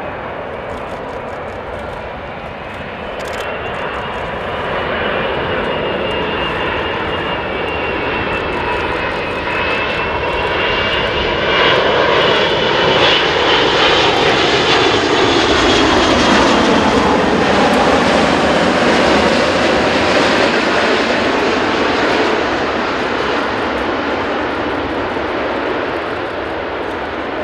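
Airbus A380-861's four Engine Alliance GP7270 turbofans at landing-approach power as the jet passes low overhead: a high whine over a broad rushing noise that grows louder to a peak around the middle. The pitch falls as it goes by, and the sound then eases off.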